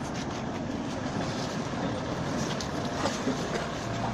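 Maserati Ghibli's engine running at low speed as the car rolls slowly off the carrier's metal unloading ramps, a steady rumble with a couple of short knocks about three seconds in.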